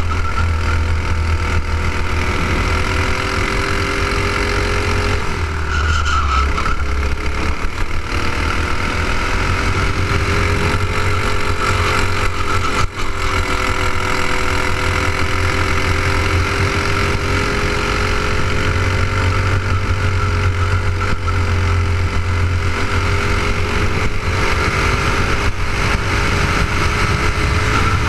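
Clone-class racing kart's single-cylinder four-stroke engine running hard under race load, heard from on board. Its pitch dips briefly about five seconds in and then climbs back, with gentler rises and falls through the rest of the lap.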